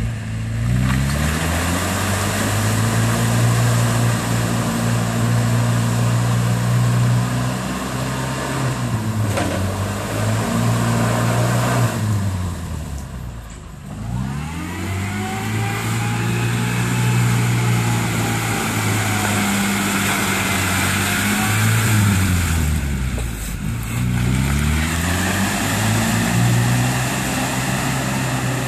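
1983 Toyota pickup's engine revving hard under load as the truck pushes through deep mud. The revs rise and fall throughout, dropping three times, most sharply about halfway through, and climbing again each time.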